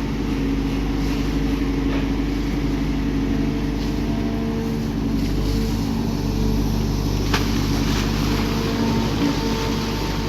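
Excavator's diesel engine running at a steady speed, with one short sharp click about seven seconds in.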